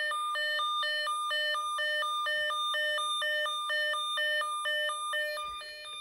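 Snap Circuits alarm circuit sounding through its speaker: an electronic two-tone warble that flips between a low and a high pitch about four times a second, steady throughout.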